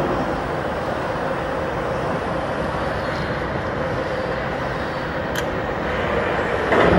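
Steady machine noise: an even hiss with a low hum underneath.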